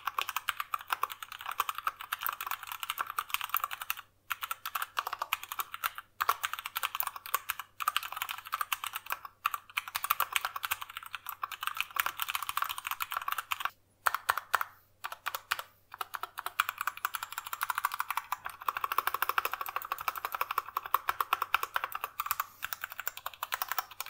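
Typing on a Durgod Venus 60% mechanical keyboard with an aluminium frame and Cherry MX Brown switches: a fast, steady run of keystrokes broken by brief pauses every second or two, with little stabilizer rattle or case ping.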